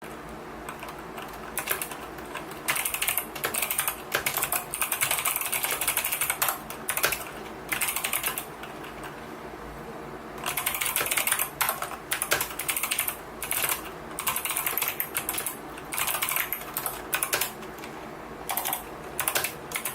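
Typing on a COX CK700 mechanical keyboard with Kailh optical switches: fast runs of key clicks lasting a second or two, broken by short pauses, with a longer pause about halfway.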